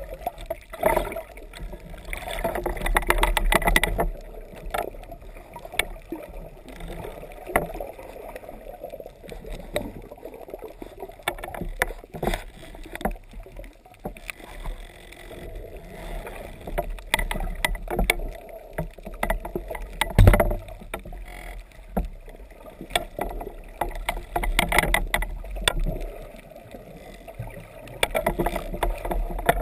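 Muffled water noise picked up through a camera's waterproof housing during a spearfishing dive, with a louder stretch of water movement in the first few seconds and many small clicks and knocks after it. One heavy thump comes about twenty seconds in.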